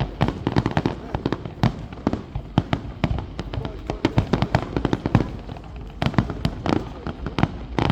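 Fireworks display going off: a rapid, irregular run of sharp bangs and crackles, several a second, over a low rumble.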